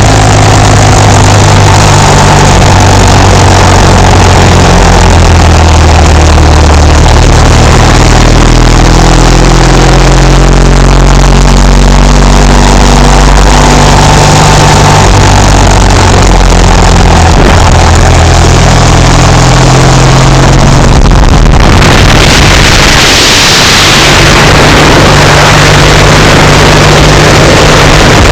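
Yamaha XS650 cafe racer's air-cooled parallel-twin engine being ridden, its pitch climbing and dropping through the gears. The recording is so loud that it is distorted. About 21 seconds in, a loud wind rush on the microphone takes over.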